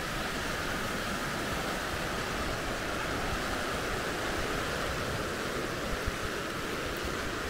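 Steady rush of flowing river water, an even hiss without pauses.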